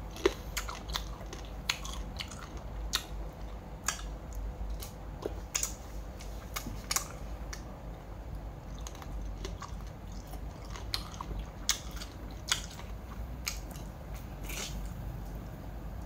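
A person chewing and biting into spicy Lao-style crab salad close to the microphone, with irregular sharp crunches and mouth clicks.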